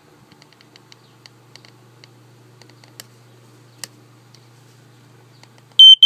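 Faint clicks and taps of fingers handling the plastic horn housing and circuit board of a BRK Family Gard FG777D smoke detector, over a low steady hum. Near the end its piezo horn, whose circuit has been repaired but sometimes fails, sounds a loud, high-pitched beep.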